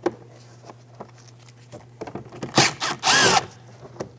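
Cordless power driver backing out a 7 mm screw from the door trim: a short whine about three seconds in, just after a brief blip of the trigger, with light clicks of the socket and screw around it.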